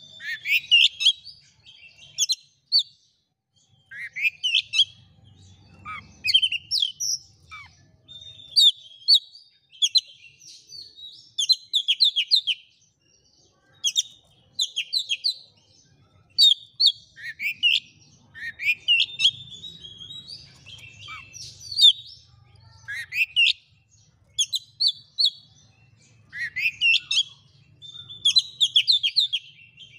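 Oriental magpie-robin singing a rapid, varied song of sharp chirps and whistles that sweep downward, one phrase after another with short pauses between.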